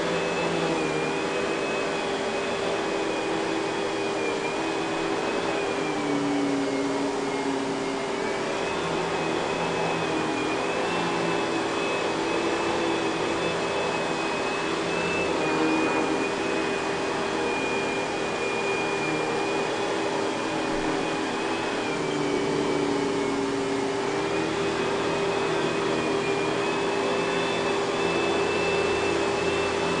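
2000 Kenmore Progressive canister vacuum running steadily while its power nozzle is pushed over carpet. It has the Panasonic-built suction motor that makes this model sound odd for its line, a steady hum under a high whine that wavers slightly in pitch.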